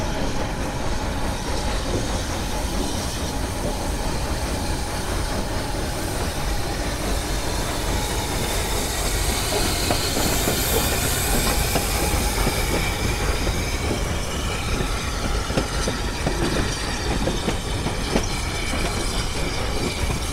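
Steam tank locomotive hauling a train of carriages past on the rails. The noise is loudest as the engine goes by about halfway through, and a faint high wheel squeal comes in as the carriages roll away.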